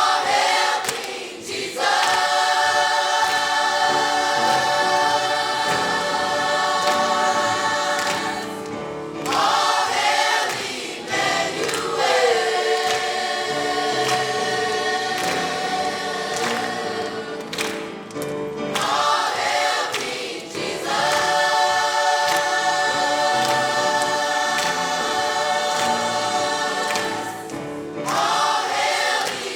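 Church choir singing, holding long chords with brief breaks between phrases.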